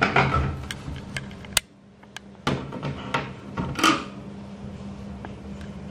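Panasonic FV-25TGU2 10-inch ceiling exhaust fan running with a steady hum, mixed with several sharp clicks and knocks. The sound cuts out suddenly about one and a half seconds in and returns about a second later with a knock.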